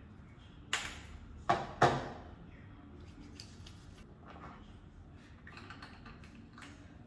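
Small objects being handled: three sharp knocks or clinks in quick succession, the last two close together, followed by lighter clicks and rustling.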